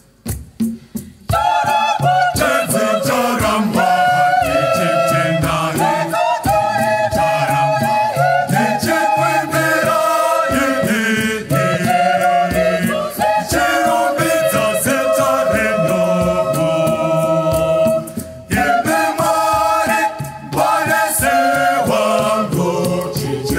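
Mixed choir singing a Shona gospel song of thanksgiving, many voices together, over a steady beat of sharp strokes. The singing comes in fully about a second in after a short lull and briefly dips twice near the end.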